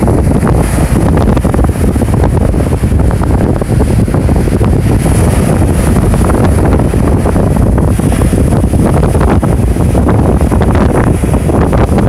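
Heavy surf churning and breaking on the shore in a continuous loud roar, with strong wind buffeting the microphone.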